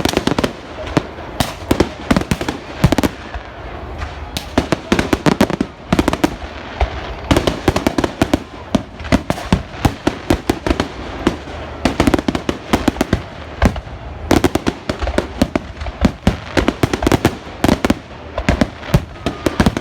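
Fireworks display: a continuous, rapid barrage of bangs and crackling reports, several a second, going off without a break.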